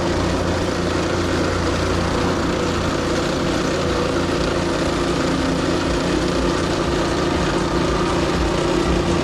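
Excavator's diesel engine running steadily.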